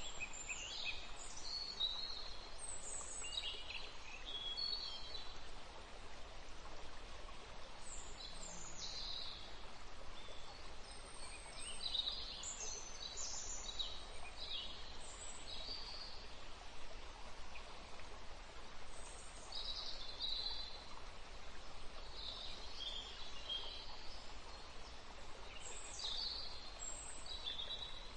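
Small birds chirping in quick, scattered phrases of high chirps, over a steady background hiss.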